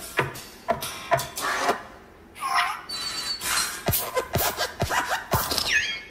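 Pixar logo intro sound effects: the hopping desk lamp's squeaky spring joints and a run of hopping thuds.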